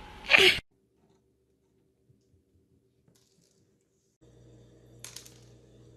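A brief loud noise near the start, then near silence. About four seconds in a faint steady room hum begins, and a quick cluster of light clicks follows from small dominoes on a wooden floor.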